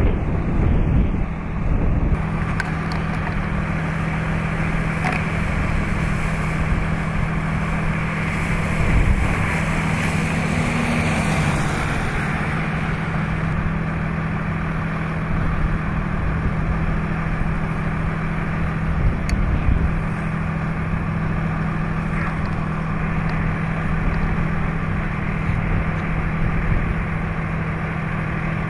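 Wind rumbling on the microphone over a steady, rushing background and a low, constant hum like a running motor; the hum shifts slightly in pitch about eleven seconds in.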